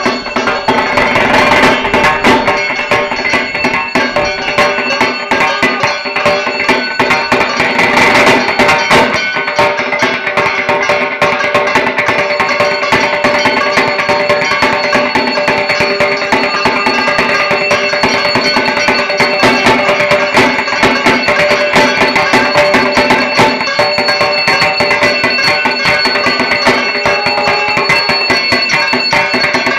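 Dhak, the Bengali barrel drum of Durga Puja, played in a fast, dense rhythm, with steady sustained tones running through the drumming.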